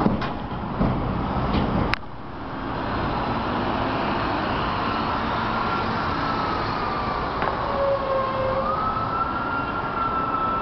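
Steady vehicle and road noise that drops out briefly about two seconds in. From about five seconds a thin tone slowly wavers up and down in pitch over it.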